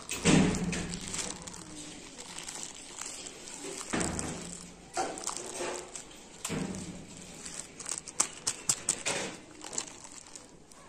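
Plastic wrapping crinkling and rustling as gloved hands roll and press a wrapped meat roll against an oilcloth tabletop, in irregular handling bursts, with a quick run of sharp crackles near the end.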